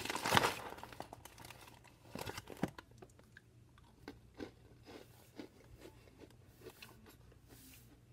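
Snack bag rustling as a hand reaches in at the start, then Goldfish Pretzel crackers being bitten and chewed: a cluster of crunches about two seconds in, then a run of small crunches roughly twice a second.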